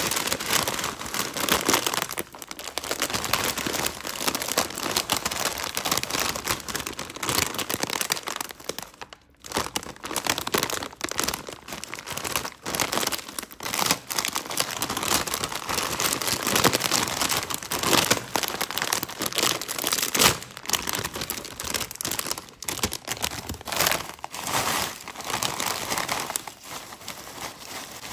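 Plastic potato-chip bag crinkling and rustling as it is handled and opened, in dense crackly bursts.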